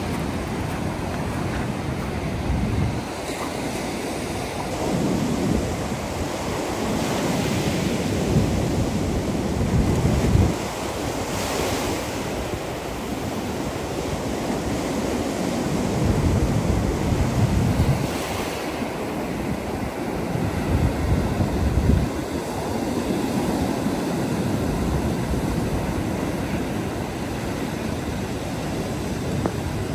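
Sea waves breaking and washing up the beach in repeated surges, with wind buffeting the microphone in gusts.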